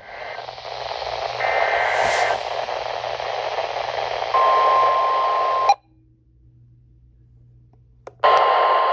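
Weather radio receiving an alert through static hiss: brief warbling two-pitch data bursts, then a steady high warning tone that begins about four and a half seconds in. The sound cuts out abruptly for about two and a half seconds in a dropout, then the hiss and the tone come back.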